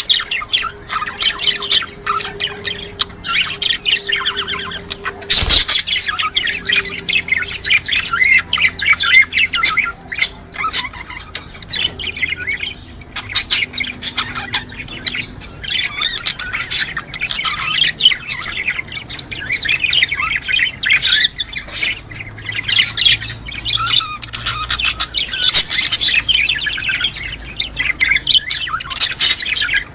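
A flock of small cage birds chirping, chattering and squawking in a dense, overlapping chorus.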